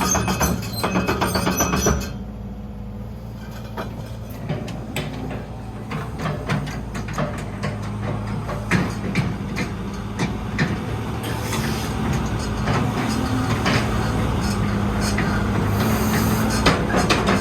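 Background music for the first two seconds, then a Sumitomo SH120LC-6 excavator's diesel engine running steadily, with scattered knocks and clanks over the hum.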